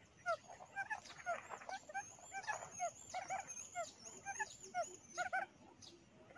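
Quail calls played from a lure speaker: short chirps that rise and fall in pitch, repeating two or three times a second.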